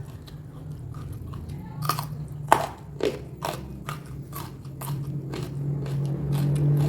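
Close-miked chewing and crunching of food, with a series of sharp crunches, over a steady low hum.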